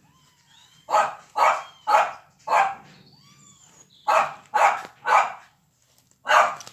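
About eight short, harsh animal calls in two runs of four, with faint high kitten mews between them.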